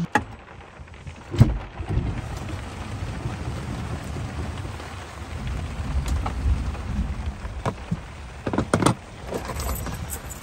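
Heavy rain pouring, with gusty wind rumbling. A rain tarp is flapping in the wind and gives a few sharp snaps: one loud snap about a second and a half in, and several more close together near the end.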